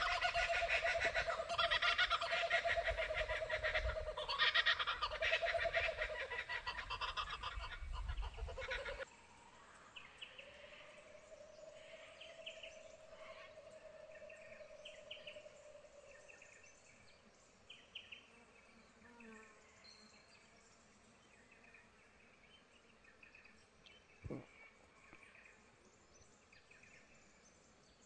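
Koala bellowing: loud, rasping, pulsing growls in several bouts that stop abruptly about nine seconds in. Faint bird chirps follow.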